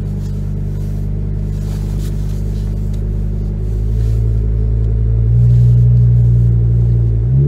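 Ford Focus ST225's 2.5-litre five-cylinder turbo engine running on a cold start. It gets louder about four seconds in and again just past five seconds as the car is backed up the drive.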